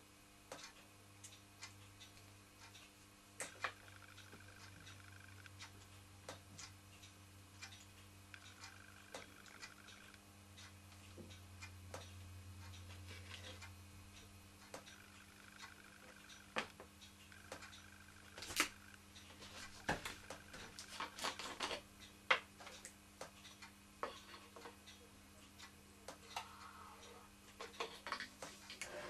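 Scattered light clicks and taps of hands working around a miniature brass model steam engine and a syringe, over a faint low hum.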